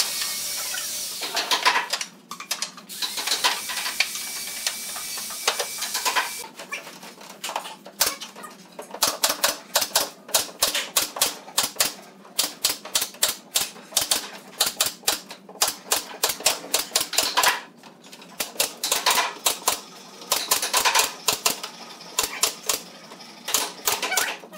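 Pneumatic nail gun firing nails into a wooden bed frame. Its sharp shots come scattered at first, then in quick runs of several a second with short pauses.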